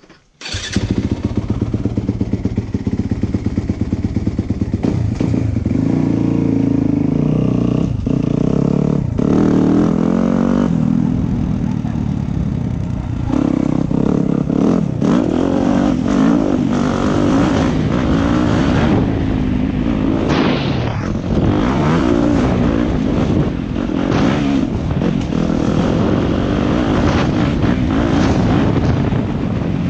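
Yamaha YZ motocross bike engine catching about half a second in, then revving up and down as the bike is ridden hard over a dirt track and forest trail, with scattered knocks and clatter from the bumps.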